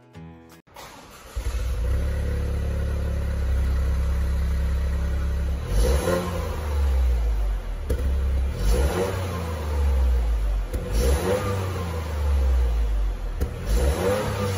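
Toyota GR Yaris turbocharged three-cylinder engine idling through the stock exhaust, blipped four times with a couple of seconds between each rev.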